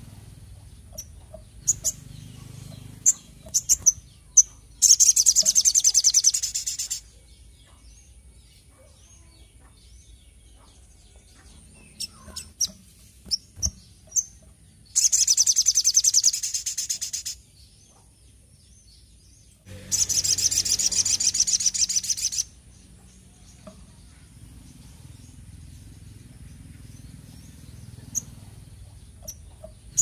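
Caged sunbird singing in full voice: three loud runs of rapid, high trilled notes, each two to three seconds long, with short single chirps and ticks in between.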